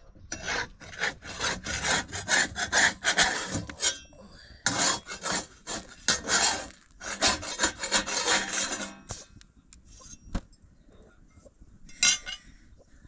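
A metal spatula scraping rapidly over flatbread on a round iron griddle in two long runs of rasping strokes. The scraping stops about nine seconds in, followed by a single knock and a short clatter.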